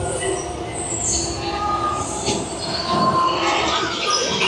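Attraction sound effects: a layer of sustained, squeal-like high tones that start, stop and change pitch over a steady noisy bed.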